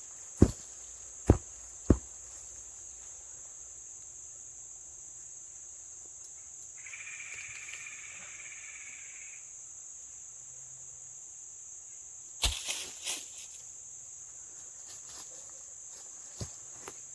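A steady, high-pitched drone of insects, crickets or katydids, in the woods. Sharp snaps or footfalls come three times in the first two seconds, and a louder crunching cluster about two-thirds of the way in. A faint held tone sounds for about two seconds near the middle.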